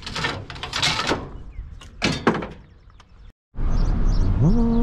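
Scraping and knocking as curbside junk is handled, then, after a brief cut, a steady low rumble.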